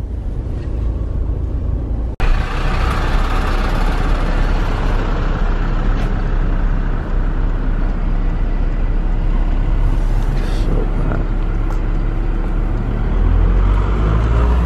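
A car driving along, heard from inside the cabin: steady low engine and road rumble. It breaks off briefly about two seconds in and swells a little near the end.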